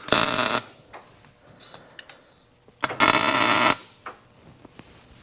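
Two tack welds with a Miller MIG welder on 1-3/4 inch steel tubing: two short bursts of the arc, each under a second and starting with a sharp click, about three seconds apart.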